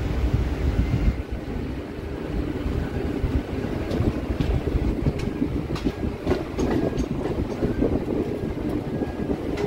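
MMTS suburban electric train running: a steady rumble with scattered clicks a few seconds in.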